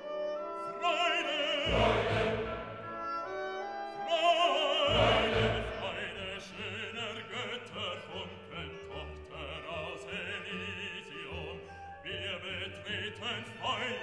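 Background music: a singing voice held in wide vibrato, in an operatic style, over instrumental accompaniment, with deep bass notes coming in about two and five seconds in.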